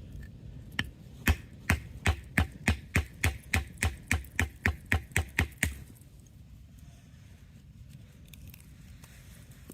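A run of about sixteen quick, even chopping strikes of a blade into wood, roughly three a second, stopping abruptly near the middle. Only a low steady outdoor background noise follows.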